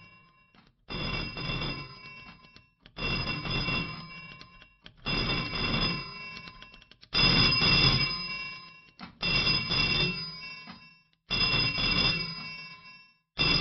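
A telephone bell ringing over and over, about one ring every two seconds, each ring starting sharply and fading away before the next.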